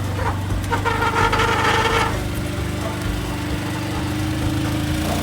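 BMS Stallion 600 UTV engine running steadily while the machine drives with its snow plow. A brief higher-pitched tone sounds about a second in.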